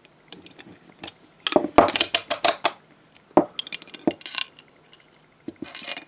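Handmade all-aluminium rigid handcuff (Martin Model S) handled with its key: runs of quick metallic clicks and clinks, the bow being freed after the key has pulled back the pawl. The first run comes about a second and a half in with a short bright ring, another near four seconds, and more clicks near the end.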